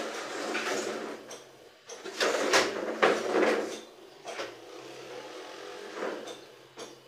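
An armchair being shoved and dragged across the floor, making several noisy scrapes, loudest a couple of seconds in.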